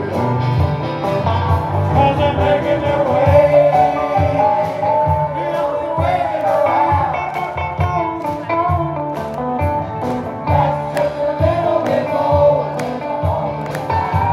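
A band playing a country-style song, with a lead vocal over a steady drum beat.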